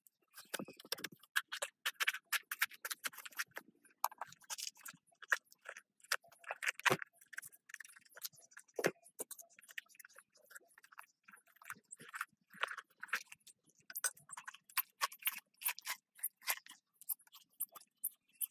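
Dry plant stalks crunching, rustling and scraping as they are handled and pushed into a small cement stove's fuel opening, in a run of irregular crackles.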